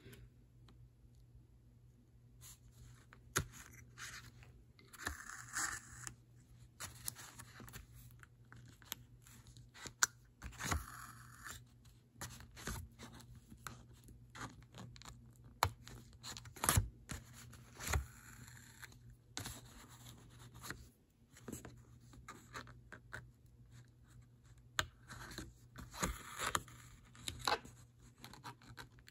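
Hand-sewing whip stitches: a needle and doubled thread drawn again and again through the fabric, making faint scratchy scrapes and small clicks, with several longer rasps as the thread is pulled snug.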